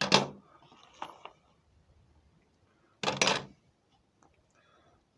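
Loose metal lathe tooling and parts being handled and set down: a sharp clank at the start, a lighter knock about a second in, and a longer clatter of about half a second about three seconds in.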